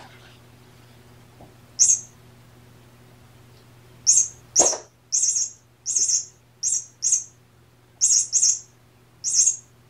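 A run of about ten short, high-pitched, bird-like chirps: one about two seconds in, then a quick string of them in the second half.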